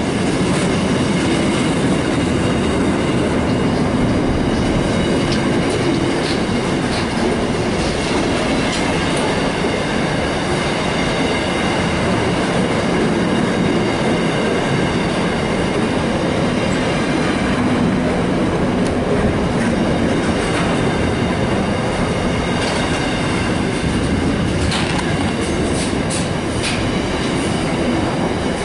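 Container freight train wagons rolling past close by: a loud, steady rumble of steel wheels on rail, with occasional clicks.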